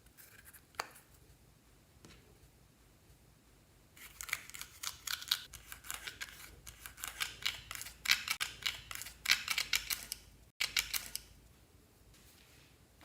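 Clear slime being squeezed and worked by hand, giving a dense run of sharp clicks and pops that starts about four seconds in and stops about eleven seconds in.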